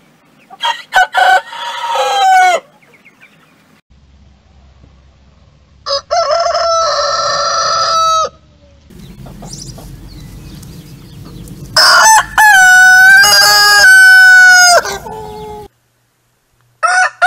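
Roosters crowing: three separate full crows, the last one the longest at about four seconds, and a fourth crow starting near the end.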